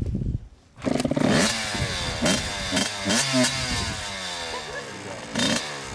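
Small two-stroke dirt bike kick-started: the engine catches a little under a second in and runs, its pitch repeatedly falling as the revs drop back, with a few sharp rises.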